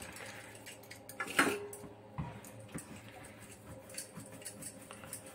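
Quiet handling of dough in a stainless steel bowl and on a wooden board. About a second and a half in there is a light metal clink that rings briefly, and a softer knock follows shortly after.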